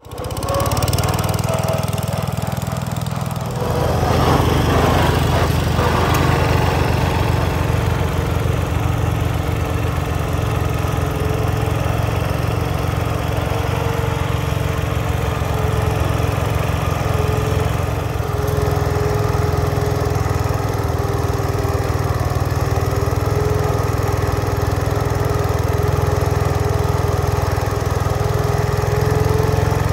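Garden tractor engines running steadily while plowing sod. The sound gets louder about four seconds in and then holds even.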